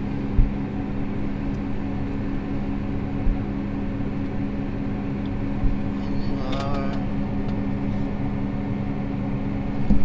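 Case IH 340 tractor's diesel engine idling steadily at standstill, heard from inside the cab.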